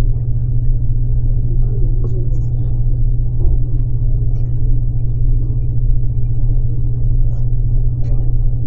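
Steady, loud low rumble with an even hum that holds level throughout.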